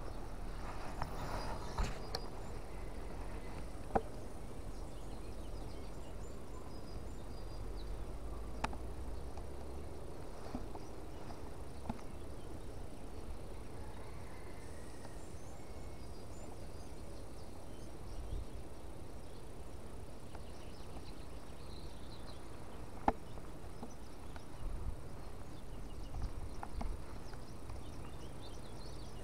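Spinning reel being cranked slowly to work a lure, a faint steady whir, with a few sharp single clicks, the clearest about 4 and 23 seconds in.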